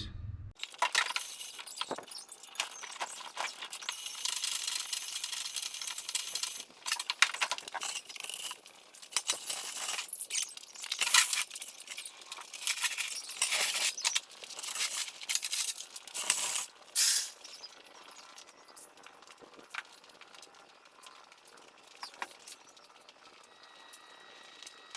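Aerosol can of spray grease hissing in repeated spurts, coating a Caterpillar 3412 V12 crankshaft against rust, with a few light metallic clicks. The spraying stops about two-thirds of the way through.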